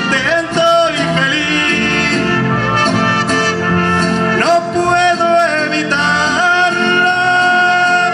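Mariachi-style ranchera music with trumpets and violins playing loud held notes, some sliding in pitch, over a steady accompaniment; no sung words.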